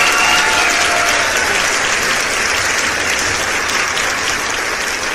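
A crowd applauding: dense, steady clapping that slowly fades, with a few cheering voices dying away in the first second.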